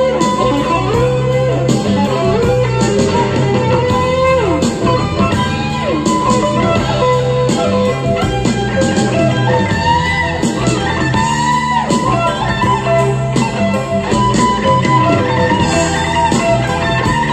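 Instrumental break of a 1980s Soviet art-rock song playing from a vinyl record: an electric guitar lead with bent, gliding notes over a steady beat.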